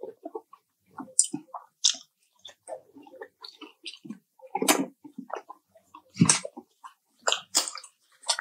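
Close-miked chewing and biting of crispy fried chicken. Irregular wet smacking is broken by sharp crunches, with a few louder bites from about halfway through.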